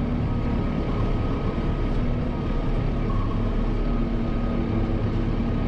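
Kubota M7060 tractor's four-cylinder diesel engine running steadily, with a faint steady whine above the engine note.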